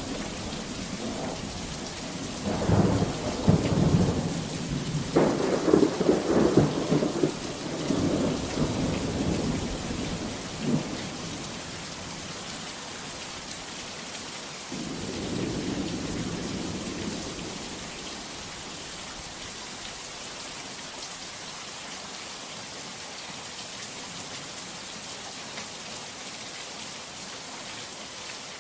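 Steady heavy rain with thunder. A few seconds in, a long rolling rumble with sharp cracks builds and fades over about eight seconds. A second, softer rumble comes around the middle, and after that the rain hiss goes on alone.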